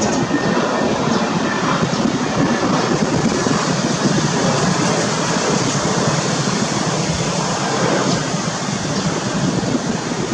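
Jet engines of a Boeing 787-8 running steadily at taxi power as the airliner rolls past, a dense, even rushing noise.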